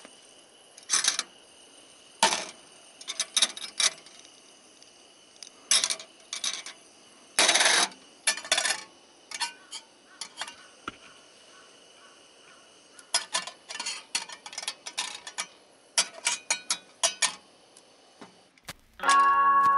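Irregular clinks and knocks of small hard objects, like dishes, cutlery or cookware being handled, coming in short clusters with pauses between. A faint steady high whine sits underneath.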